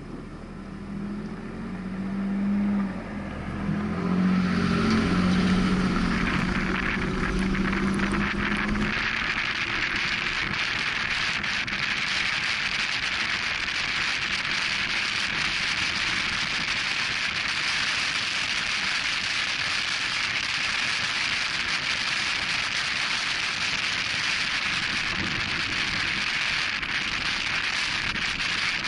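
Pickup truck accelerating, its engine note climbing in steps for the first several seconds, then buried under a loud, steady rush of wind noise on the microphone at speed on a dirt trail.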